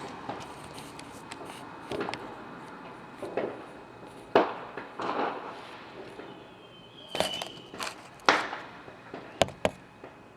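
Fireworks going off: a string of sharp bangs and pops at irregular intervals, the loudest about four and eight seconds in, with a brief high whistle around the middle.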